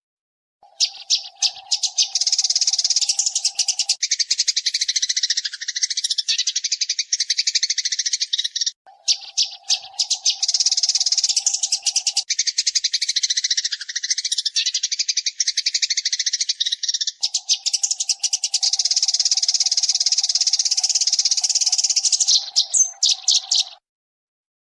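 Eurasian tree sparrow (burung gereja) chirping in a fast, dense, unbroken chatter, in three long stretches with brief breaks between them. A steady low hum runs under parts of it.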